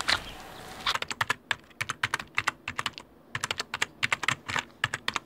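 Keyboard typing sound effect: a quick, uneven run of sharp key clicks, several a second in short bursts with brief gaps, starting about a second in over a silent background.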